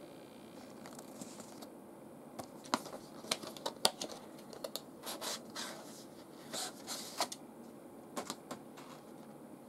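Plastic blister packaging and its paper card being handled and opened by hand: a run of sharp plastic clicks and crackles with short paper and plastic rustles between them.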